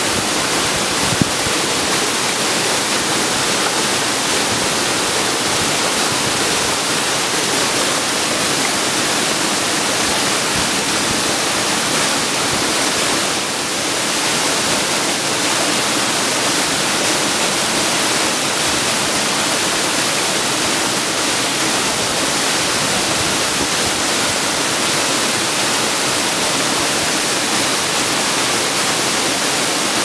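Steady, loud rush of a 21 m waterfall plunging into its rock pool, with water also tumbling over boulders in the stream below. The sound dips slightly for a moment about halfway through.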